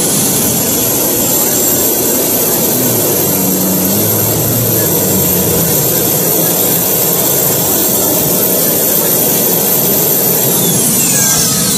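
Gas-turbine (helicopter-engine) motorcycle running loud and steady, with a high turbine whine over a dense rush, as it holds its rear tyre spinning in a standing burnout. Near the end a high whine drops steeply in pitch.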